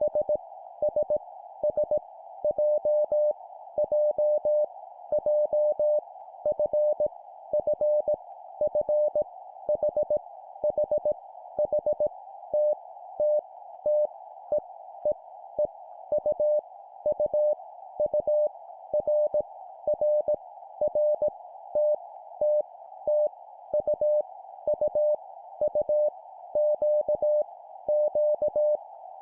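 Morse code (CW) beep tone keyed at 17 words per minute, sending random letters with each letter repeated three times. The dots and dashes come in short groups over a steady band of hiss like a receiver's noise.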